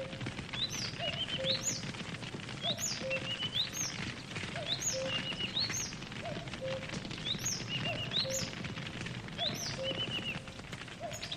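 Campfire crackling with a steady scatter of small pops, while birds chirp over it in short rising calls repeated about once a second, together with a lower short call that repeats at the same pace.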